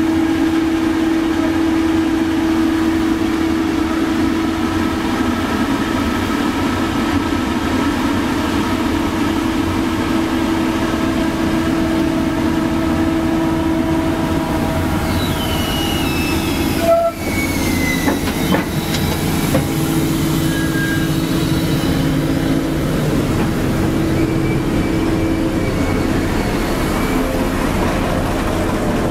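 Doosan DX225LCA excavator running, its diesel engine and hydraulics giving a steady droning hum. About halfway through, a few high squeals glide down in pitch and the sound breaks off for a moment.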